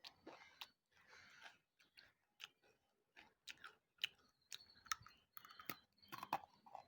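Quiet chewing and crunching of wet slate chips: irregular sharp clicks and short crackles as the brittle stone breaks between the teeth.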